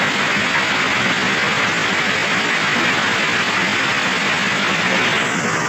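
Railway ballast regulating machine working under load: a steady, loud, even noise of its engine running and its plough moving track ballast.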